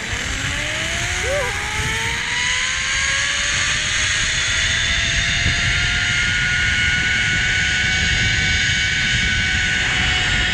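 Zipline trolley's pulleys whining along the steel cable as a rider launches: the whine rises in pitch over the first few seconds as the rider gains speed, then holds steady, over a rushing noise.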